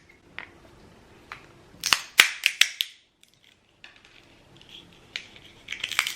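Walnut shell cracking in a hand walnut cracker: a series of sharp cracks and snaps, the loudest cluster about two seconds in, then a few more cracks near the end as the shell is crushed again.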